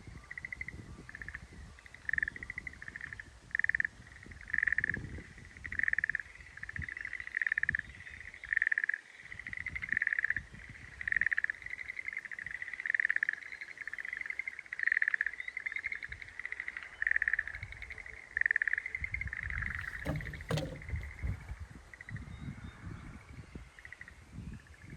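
Schlegel's green tree frog calling: a long series of short, trilled notes about one a second, which stops about nineteen seconds in. A single sharp knock follows near the end, over low rumbling.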